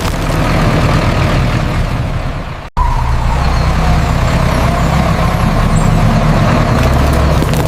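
Heavy truck engine running steadily with a drifting whine over a low hum. It cuts out abruptly for an instant about two and a half seconds in, then carries on.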